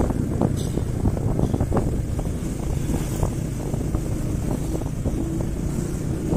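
Wind buffeting the microphone of a phone on a moving motorbike, a steady low rumble, with the motorbike's engine running underneath.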